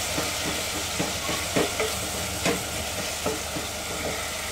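Sliced onions sizzling steadily in hot oil in an aluminium pressure cooker. A wooden spoon stirs them, knocking and scraping against the pan now and then.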